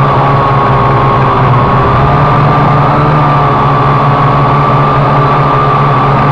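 Syma X8C quadcopter's motors and propellers running steadily in flight, heard loud through its onboard camera's microphone: a steady low hum under a high whine that wavers slightly in pitch.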